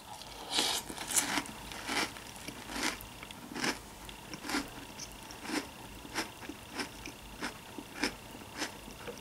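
A mouthful of crunchy vanilla cereal in milk being chewed with the mouth closed: a steady run of crisp crunches, a little under two a second.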